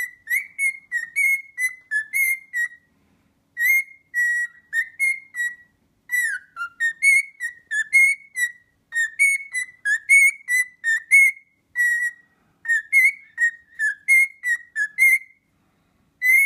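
Cockatiel whistling a song: a long string of short, bright whistled notes that bend up and down, several a second, with a brief pause about three seconds in and another near the end.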